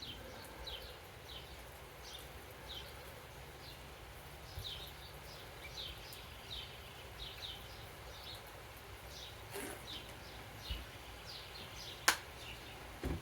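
Small birds chirping, a steady run of short, high, downward-sliding notes. A single sharp click about twelve seconds in.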